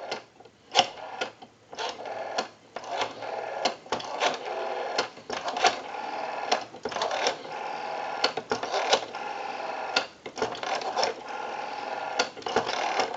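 Rotary dial of a Western Electric 554 wall telephone being dialed through the digits one after another: repeated clicks as it is wound and let go, with a whirr between them as it spins back.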